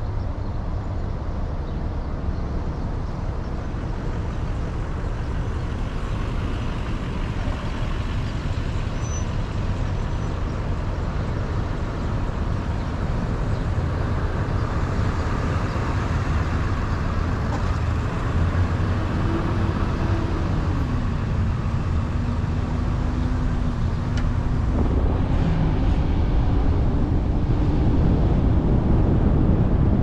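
Road vehicle driving, with steady engine and tyre noise that grows a little louder toward the end. A droning engine tone dips and then holds steady in the second half.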